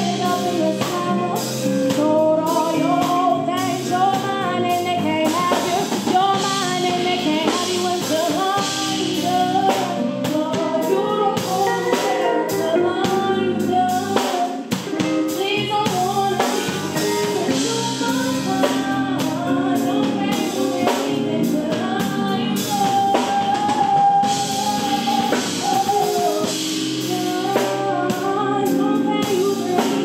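A woman singing R&B with a live band: drum kit, electric bass, electric guitar and keyboard. She holds one long note about two-thirds of the way through.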